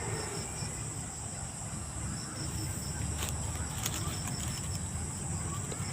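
Night-time chorus: a steady high insect-like drone with a rapid string of short high piping notes repeating over and over, which is taken for a bird that keeps calling nonstop. A low rumble runs underneath.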